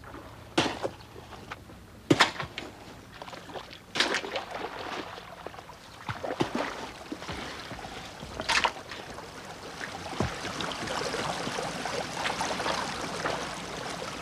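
A long-handled hoe chopping into the soil of an irrigation ditch bank, a few sharp strikes some seconds apart. From about halfway through, water runs and trickles along the ditch as a steady rushing.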